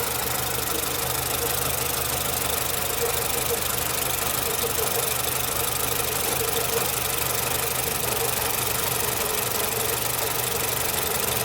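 Nissan Platina engine idling steadily with a spark tester fitted on cylinder 2, running without the shaking stumble of its misfire during this test.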